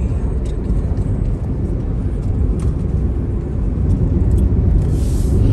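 Steady low road and engine rumble of a car driving at speed, growing slightly louder near the end, with a brief rush of hiss close to the end.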